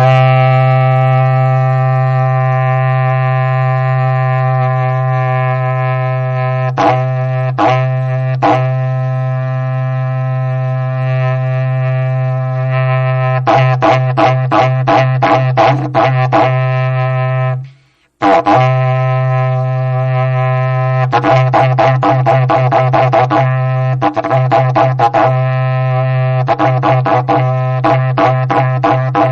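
Berrante, the Brazilian cattle-driver's horn, blown in one long low droning note. In several stretches the note is pulsed in quick rhythmic bursts, and there is a brief break about eighteen seconds in. This is the call used to lead and drive a cattle herd.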